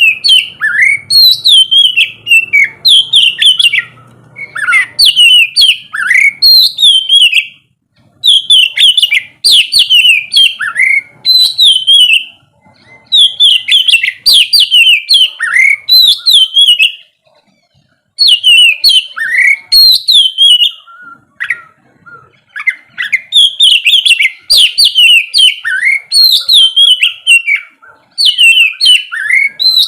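Oriental magpie-robin (kacer) in full, vigorous song: quick runs of loud, sliding whistled notes in phrases of two to four seconds, broken by short pauses.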